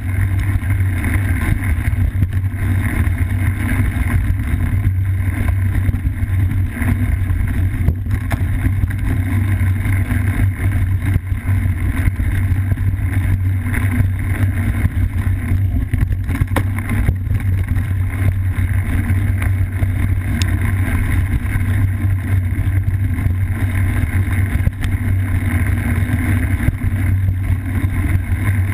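Cyclocross bike riding a dirt singletrack, heard through a bike-mounted GoPro: a steady muffled rumble of tyre and frame vibration mixed with wind, with a few knocks from bumps a little past the middle.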